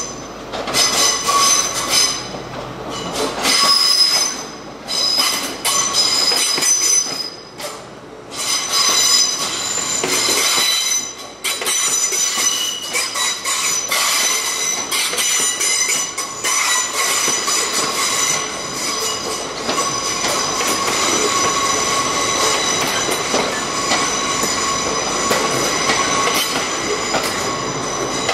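Train wheels squealing against the rails on curved track, several high shrill tones held together, with clattering and knocking over rail joints and uneven surges in loudness through the first half before the squeal settles into a steadier sound.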